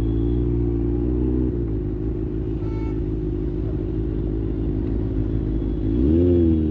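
Kawasaki ZX-6R's inline-four engine running at steady revs, then easing off to a lower rumble as the throttle closes. A short high beep sounds near the middle. About six seconds in, the throttle opens and the engine rises in pitch and loudness.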